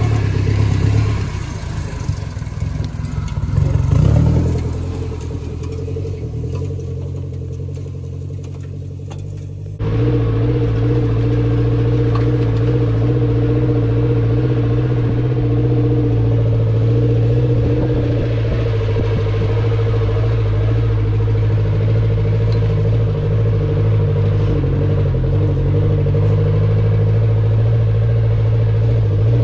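A Maruti Suzuki Gypsy 4x4's four-cylinder petrol engine running as the vehicle drives over a grassy, muddy track, with a brief rise in revs a few seconds in. About ten seconds in the sound cuts abruptly to a louder, steady engine note that holds evenly to the end.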